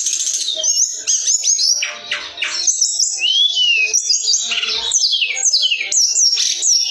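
Hill blue flycatcher (tledekan gunung) singing a continuous, rapid run of high whistled notes, many sweeping steeply downward, with a few longer arching whistles between them.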